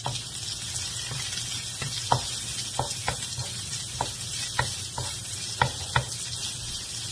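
Chopped onion and garlic sautéing in a little oil in a nonstick wok: a steady sizzle, stirred with a wooden spatula that taps and scrapes against the pan about once a second, irregularly.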